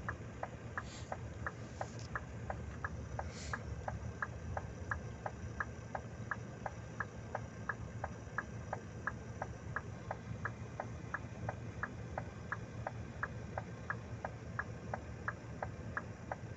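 Even, regular ticking at about three ticks a second over the low, steady rumble of an idling truck engine heard from inside the cab.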